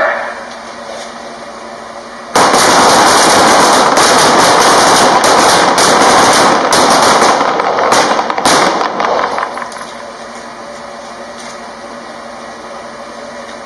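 A line of pistols firing many rapid, overlapping shots on an indoor firing range, starting suddenly about two seconds in and thinning to a few last separate shots a few seconds later.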